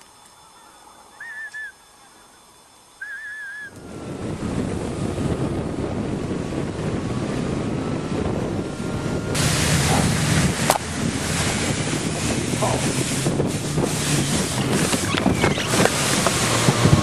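A few short high chirps over quiet, then from about four seconds in a snowmobile engine running steadily under heavy wind noise, the wind growing louder about halfway through.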